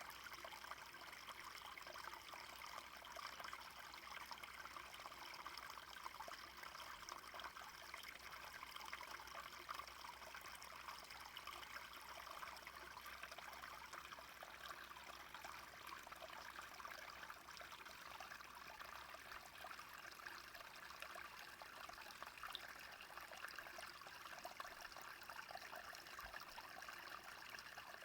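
A small brook flowing, the water trickling and babbling faintly and steadily.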